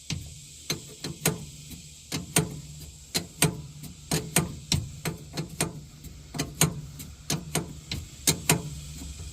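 Irregular sharp metallic clicks and taps, two or three a second, from a wrench working the hydraulic line fittings on a mini excavator's control valve, over a steady low hum.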